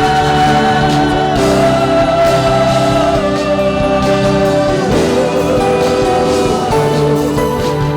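Live worship band music: slow, sustained chords whose notes shift every second or two.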